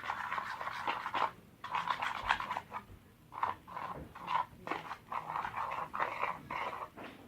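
A utensil stirring and squishing a sticky, foamy slime mixture of glue, shaving cream and contact lens solution in a bowl. It makes irregular wet squelches about two or three a second.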